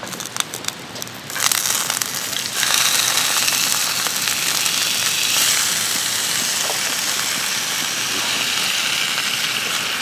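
Clicks and a plastic bag crinkling, then pork and bean sprouts hitting hot coconut oil in a small camp pan: the frying starts about a second and a half in, grows louder about a second later and settles into a steady, loud sizzle.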